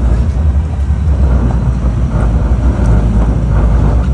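Sport-fishing boat's engine running with a steady low rumble while under way.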